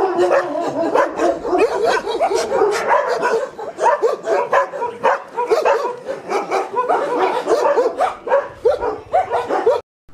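Several shelter dogs barking and yelping together, many short calls overlapping in a steady chorus; it cuts off suddenly near the end.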